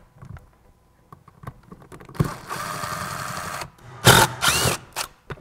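Socket wrench turning out the stator mounting bolts in an engine's stator cover: a run of rapid ratcheting about halfway through, then louder bursts near the end.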